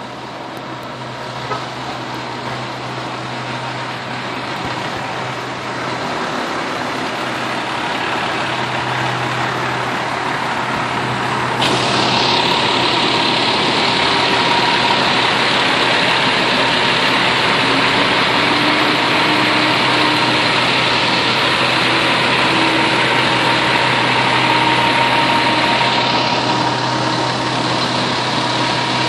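Diesel engine of a 2009 Crimson/Spartan aerial ladder fire truck idling steadily, a low even hum under a loud rush of engine noise that grows louder about twelve seconds in.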